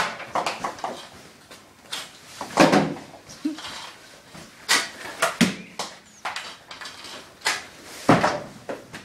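Hockey sticks and pucks clacking during shooting practice: a string of sharp, irregular hits, the loudest about two and a half seconds in and another strong one near the end.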